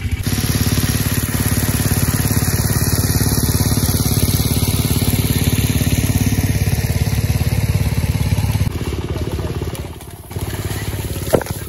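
A small engine running steadily. Its sound weakens about nine seconds in, and a short click comes near the end.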